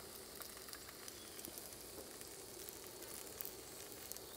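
Tortillas frying in a pan, a faint sizzle with a few small crackles.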